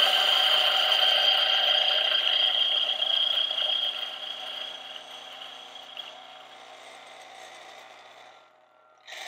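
Turin DF64E 64 mm flat-burr coffee grinder's motor whining as it grinds beans, with the catch cup rattling against it. It runs steadily for about three seconds, then grows gradually quieter and stops near the end.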